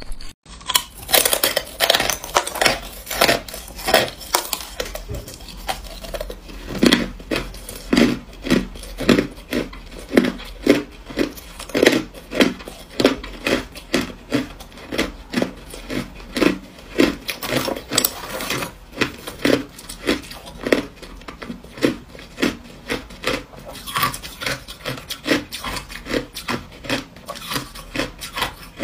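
Crushed ice crunched and chewed in the mouth, close to the microphone: a steady run of crisp crunches, about two a second.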